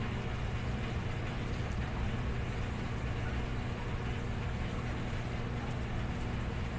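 Steady low hum over a constant background rush, with no distinct events.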